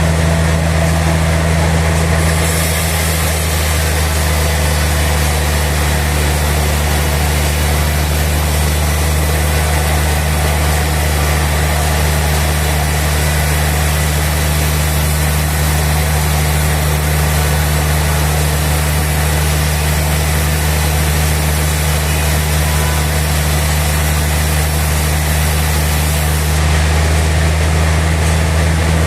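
Sawmill machinery running with a steady low hum; about two seconds in a high hiss joins it and lasts until near the end.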